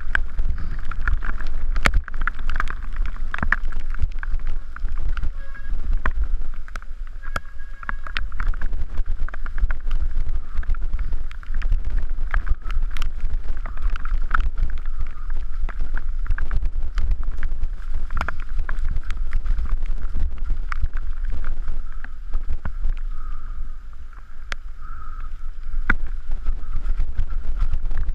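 Mountain bike riding fast down a wet dirt trail, heard from a camera on the rider: constant wind rumble on the microphone, a steady hiss of tyres on wet dirt, and a dense run of knocks and rattles as the bike goes over roots, rocks and ruts.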